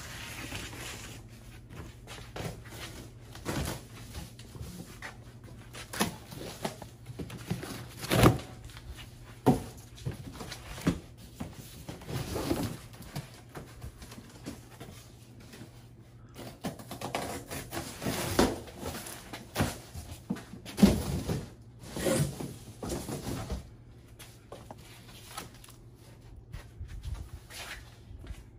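Long cardboard shipping box being opened and handled: flaps rustling and scraping, with scattered knocks and thumps, the loudest about eight seconds in and again around twenty-one seconds.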